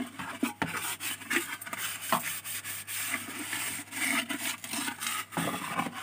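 Green scouring pad scrubbed over a plastic washing-machine lint filter: an irregular run of scratchy rubbing strokes.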